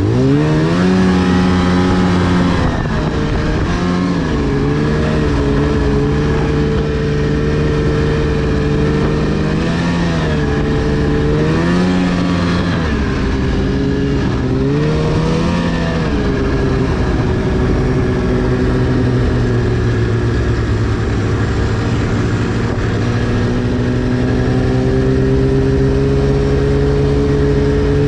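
2010 Arctic Cat CFR 1000's 1000cc two-stroke engine running under way, revving up and easing off several times in the first half, then holding a steady speed with a slow rise in pitch near the end.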